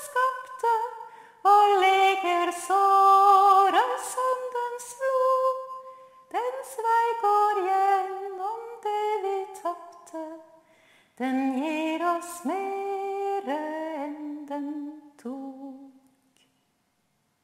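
A woman singing solo and unaccompanied, a slow wordless melody of held notes in short phrases that fades out about sixteen seconds in.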